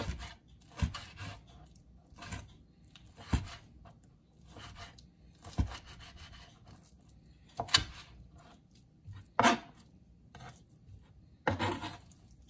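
Chef's knife chopping raw lobster tail meat on a plastic cutting board: separate knocks of the blade against the board, one every second or two.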